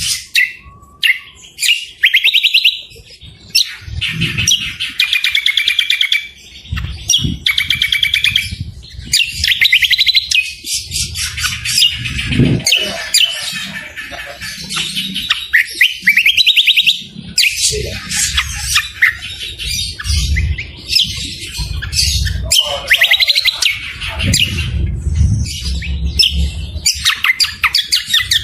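Songbirds singing in fast chattering trills and rapid repeated notes, broken by short pauses: a mix of cagebird songs led by the greater green leafbird (cucak kombo), with harsh, rough-toned phrases from other birds. A low rumble runs beneath parts of it.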